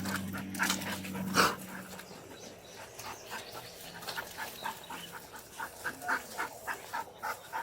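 A dog making short, repeated sounds, about three a second, through the second half, after a couple of sharper sounds in the first second and a half.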